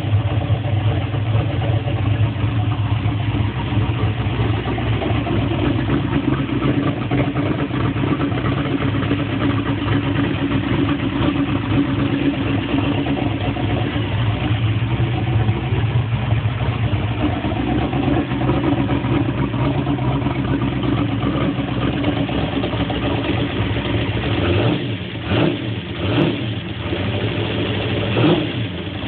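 Big-block Ford V8 in a race car idling steadily. Near the end the engine note dips and rises briefly a few times.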